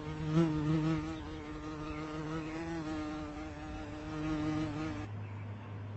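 A flying insect buzzing, with its pitch and loudness wavering a little, louder near the start. About five seconds in it cuts off abruptly to a low steady hum.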